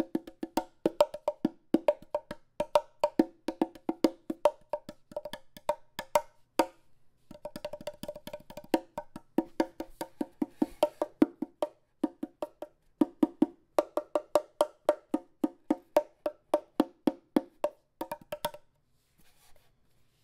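Meinl Bongo Cajon played with bare hands: a fast run of slaps and finger strikes moving between a lower and a higher tone, with a couple of short breaks. The playing stops near the end.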